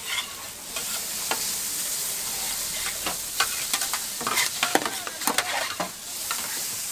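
Noodles sizzling on a hot flat steel griddle while two metal spatulas scrape and clack against the plate, the clatter busiest in the middle few seconds.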